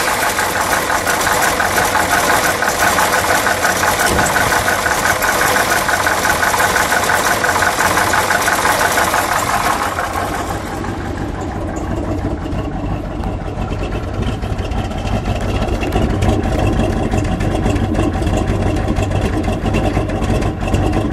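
1968 Dodge Coronet R/T's 426 Hemi V8 idling steadily just after starting. It is bright and busy when heard from over the open engine bay, and about ten seconds in it settles to a lower, steady exhaust rumble heard at the tailpipes.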